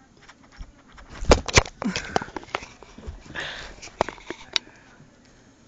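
Rough hand-to-cat play: a quick run of thumps, knocks and scuffles from swatting and handling close to the microphone, with a short breathy rush of noise about three and a half seconds in.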